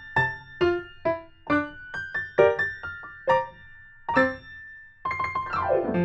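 Instrumental background music led by a piano-like keyboard playing a light melody of separate, quickly fading notes, with a fast falling run of notes near the end.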